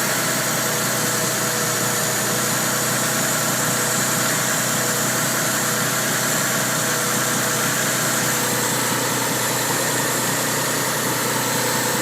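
Mitsubishi 3000GT VR4's 3.0-litre twin-turbo V6 idling steadily when warm, the condition under which its owner hears a knock from around cylinder 6 and sees black smoke from the tailpipe.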